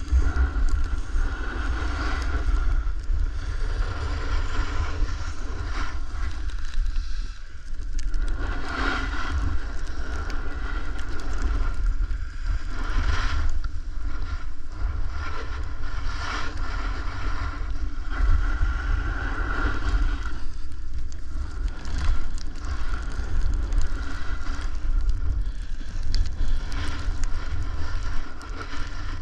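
Wind buffeting the microphone of a snowboarder riding downhill, over the scraping hiss of the snowboard sliding and carving on snow.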